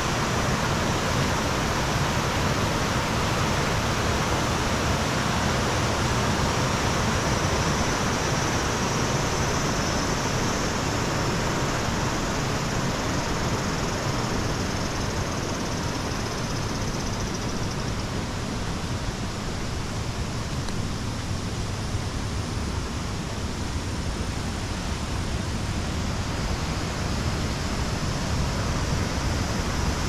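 Waterfall pouring onto rock: a steady, even rushing of water.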